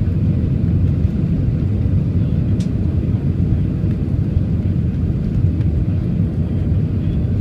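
Steady low rumble inside an airliner's cabin in flight on approach, the even drone of engines and airflow heard from a window seat.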